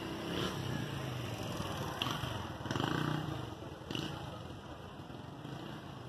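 A motor vehicle engine running nearby, a low rumble that swells about three seconds in, with two sharp clicks about two and four seconds in.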